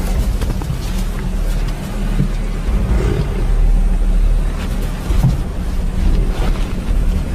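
Lions growling in a low, steady rumble while grappling with a Cape buffalo bull, with scattered knocks and scuffles of the struggle.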